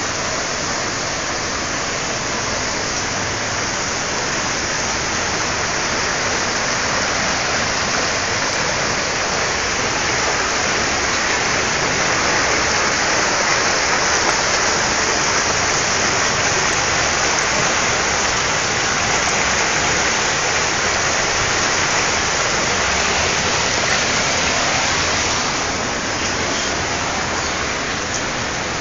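Heavy hurricane rain and floodwater rushing through a flooded street: a steady, even hiss that eases slightly for the last few seconds.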